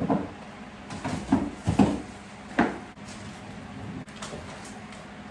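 Knocks and clunks of frozen items and freezer drawers or shelves being handled as a freezer is emptied, a quick run of them in the first three seconds and one more about four seconds in.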